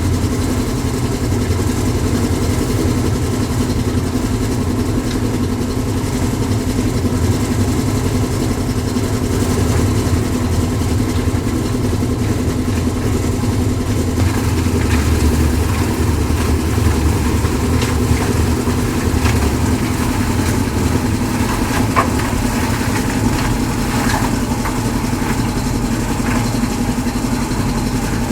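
Concrete mixer machine's engine running steadily, with scattered knocks and clatter in the second half.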